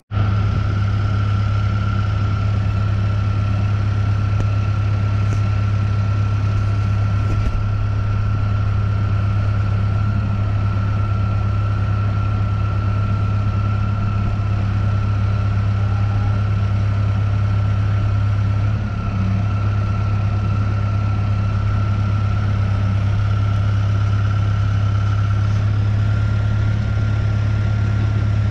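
Diesel engine idling steadily: a deep, even hum with a thin, constant whine above it.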